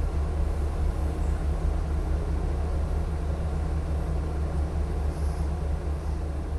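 KiHa 40-series diesel railcar pulling out of the station, its diesel engine running with a steady low drone.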